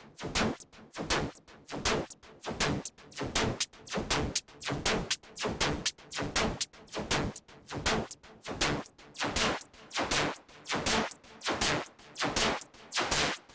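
AIR Vacuum Pro synthesizer plugin playing a rhythmic pattern of short, sharp, noisy percussive hits, about two a second, with a gritty, dirty tone.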